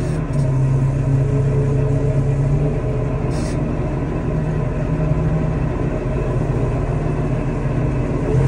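Tractor engine running steadily under load, powering a TMR mixer wagon, with a steady low hum throughout.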